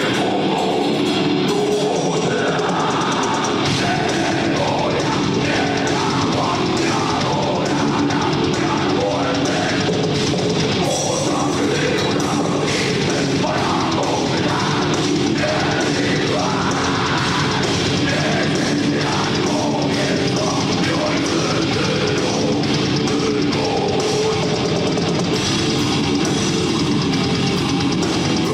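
Heavy metal band playing live: electric guitars and a drum kit, continuous and loud.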